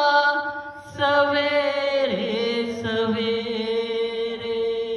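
Naat singing without words: a voice holds long drawn-out notes, breaks briefly about a second in, slides down in pitch about two seconds in, then holds one long note that eases off near the end.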